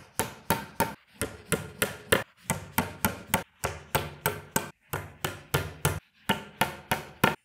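A hammer tapping wooden dowels into drilled holes in the particleboard panels of an IKEA Billy bookcase: quick repeated strikes, about three or four a second, with short pauses about 1, 3.5 and 6 seconds in.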